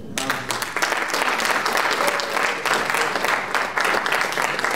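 Audience applauding. It breaks out suddenly and keeps up at a steady level.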